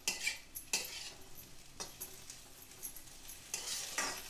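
A metal spatula scrapes and stirs fried taro root pieces around an iron kadai, over a light sizzle of frying. There are several scraping strokes, bunched near the start and again near the end.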